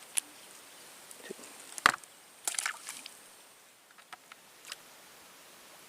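A few sharp clicks and knocks from handling fishing gear and the fish, the loudest just under two seconds in, with a short rattly cluster soon after.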